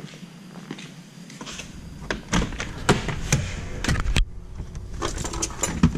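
Footsteps on a concrete floor mixed with knocks from a handheld camera being carried. The sharp knocks come roughly two a second from about two seconds in.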